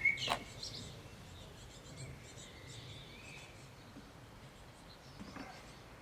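Quiet outdoor ambience with faint bird chirps in the distance and a low rumble, broken by a single sharp click just after the start.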